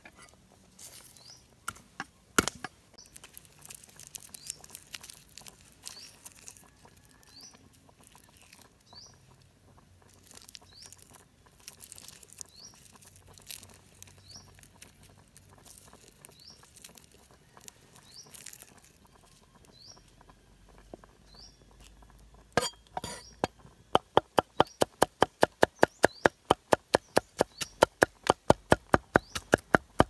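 Garlic cloves being peeled by hand on a wooden chopping board, small crackles and taps from the papery skins. Near the end a few heavy knocks, then fast, even chopping of garlic with a cleaver on the board, about five strokes a second. A faint high chirp repeats about every second and a half behind it.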